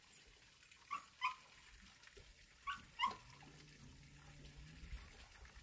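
An animal's short, high yelps, faint, in two quick pairs about two seconds apart, with a faint steady low hum in the second half.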